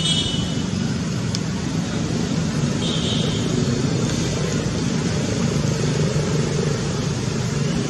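Steady low motor rumble, like a running engine or road traffic, with a brief high squeak about three seconds in.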